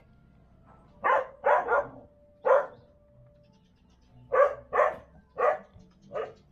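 A dog barking repeatedly: about eight short barks in two bunches, with a short pause in between.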